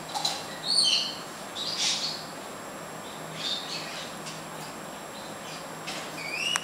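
Yellow-backed chattering lory giving several short, high chirps while it eats, spaced a second or more apart, the last one sliding upward.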